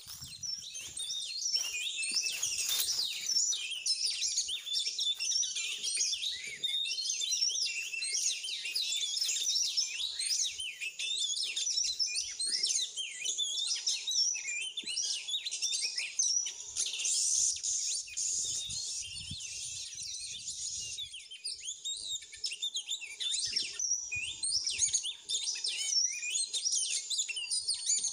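Oriental magpie-robin song as a trapping lure: a dense, unbroken run of quick, varied chirps and whistles.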